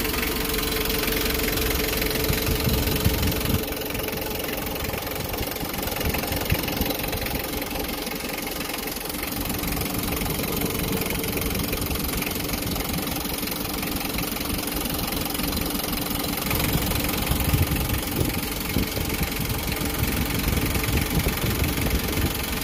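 Mitsubishi 4D56 four-cylinder diesel engine idling steadily with a diesel clatter, its drive belts and cooling fan turning.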